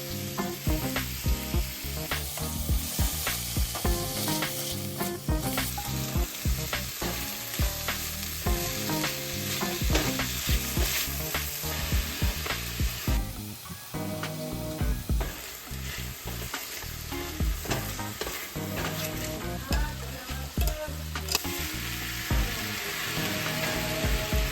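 Food sizzling as it fries in a pan, with frequent sharp clicks of stirring.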